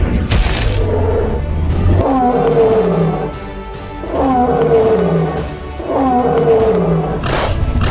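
Background music with a phrase that repeats about every two seconds, mixed with a growling, roar-like animal sound.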